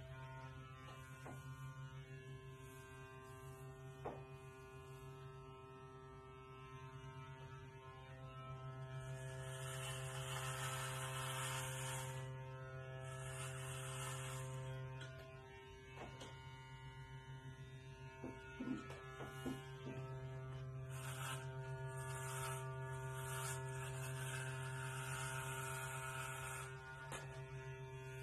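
Electric hair clippers running with a steady buzz while shaving a head down to stubble; the sound grows louder and raspier with a hiss as the blades pass through the hair, about ten seconds in and again after twenty seconds. A few light clicks as the clippers are handled.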